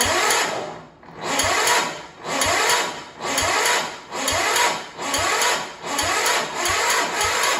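Small garden-tractor engine cranked over by its electric starter without choke, turning slowly and labouring in surges about once a second, each with a rising whine, a little quicker near the end, and not catching. The battery is too weak to spin it properly.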